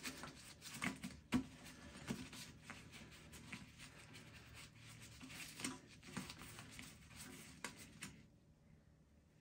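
Faint handling noises: gloved hands fitting a rubber tank-to-bowl gasket onto the underside of a porcelain toilet tank, with scattered light scratches and clicks, going quiet near the end.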